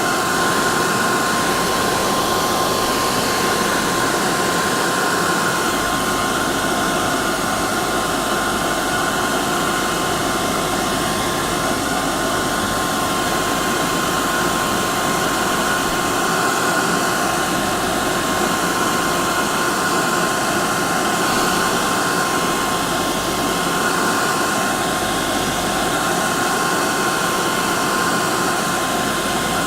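Hair dryer running steadily: an even rush of blown air with a constant motor whine on top.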